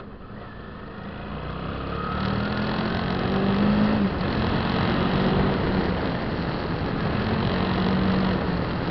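Suzuki V-Strom 650's V-twin engine pulling as the motorcycle accelerates up a slope, with wind rush over the bike. The engine note climbs and grows louder over the first few seconds, drops abruptly about four seconds in, then holds steady.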